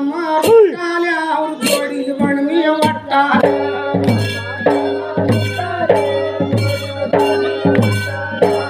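Dollina pada: a man singing a Kannada folk song in long held, wavering lines over a large dollu barrel drum beaten with a stick and the bare hand in a steady rhythm, with sharp strokes and deep thuds.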